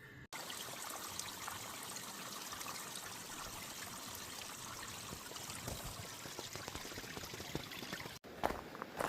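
River water running steadily. It cuts off suddenly near the end, followed by a few footsteps.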